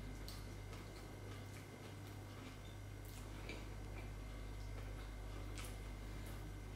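Quiet eating by hand: scattered soft clicks and smacks of chewing and of fingers picking at crisp fried fish, over a low steady hum.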